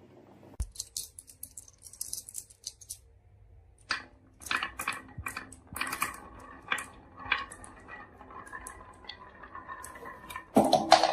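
Marbles clicking and clattering down a wooden marble run, with scattered light ticks at first, then busier knocks over a faint rolling ring, and a louder dense clatter near the end.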